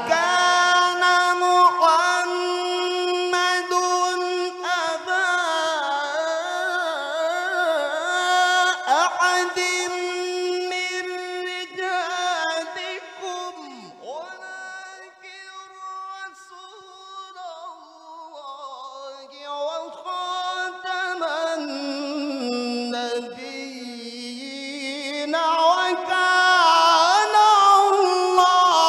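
Unaccompanied male Quran recitation (tilawah) sung through a microphone: one long melismatic passage with wavering ornaments. The voice holds high and steady for about the first twelve seconds, slides lower through the middle, then climbs again near the end.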